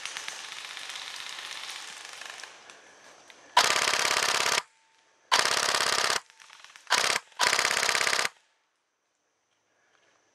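Airsoft gun firing full-auto, four loud bursts of very rapid, even clicks, the first three about a second long except a short third one, beginning about three and a half seconds in. Fainter rapid clicking comes before them.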